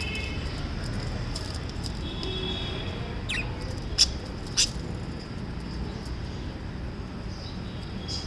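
Small pet parrots chirping: a few short chirps and a falling whistle, then two very short, sharp, loud sounds about half a second apart, over a steady low background noise.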